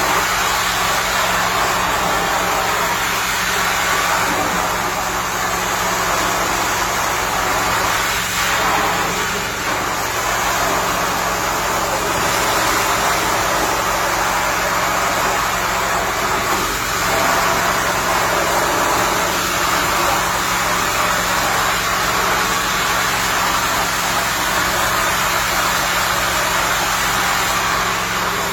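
Carpet cleaning extraction machine running: a steady engine-like hum under a continuous rushing hiss of suction.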